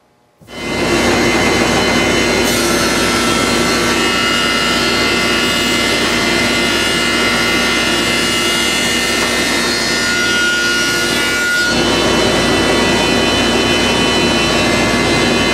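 Thickness planer running under load as a board feeds through and the cutterhead takes a light cut of about 1/32 inch: a loud, steady noise with a high whine, coming in suddenly about half a second in.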